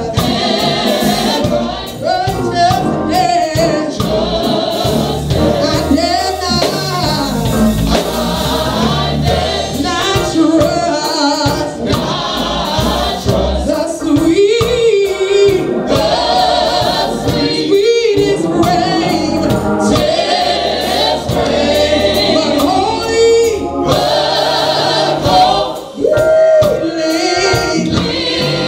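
Live gospel praise team of women and men singing together over band accompaniment.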